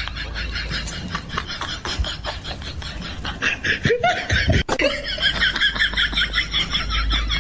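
A person laughing in quick, rhythmic bursts, with a short sliding vocal sound about four seconds in.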